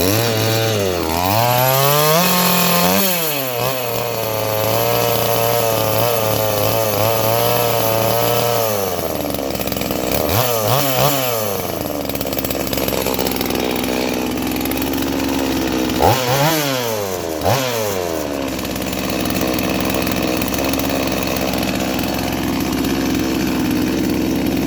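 Farmertec G255 two-stroke chainsaw engine running just after starting. It revs up and down at first, holds a fast steady speed for several seconds, is revved up and let down sharply twice, about 10 and 16 seconds in, then runs steadily. It runs erratically enough that the owner suspects it is sucking air.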